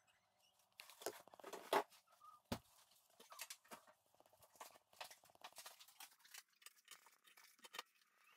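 Faint rustling, crinkling and light tapping of hands handling a paper mache skull, peeling and pressing pieces of paper on its surface, with one sharper knock about two and a half seconds in.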